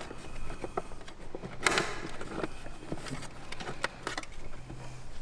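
Scattered light clicks and knocks of hands and tools working on parts, with one louder clatter about two seconds in, over a faint steady low hum.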